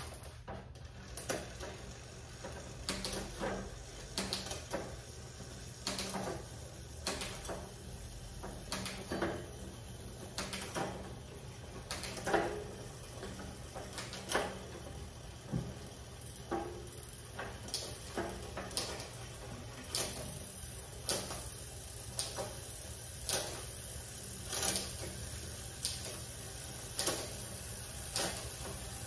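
Mountain bike drivetrain being cycled through its gears: the cranks turned by hand keep the chain and freewheel running, with a sharp click about once a second as the rear derailleur shifts the chain cog by cog across the cassette.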